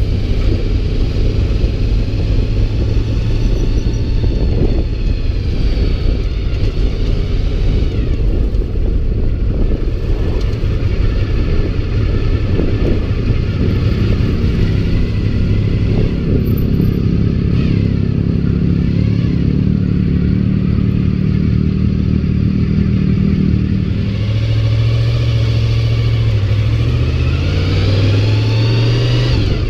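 Honda VFR's V4 engine running steadily at road speed. Near the end its note rises as the bike accelerates.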